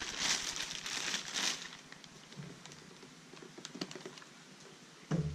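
Plastic packaging crinkling and rustling as the cordless vacuum cleaner is unwrapped, loudest in the first second and a half, then quieter handling with a few light clicks.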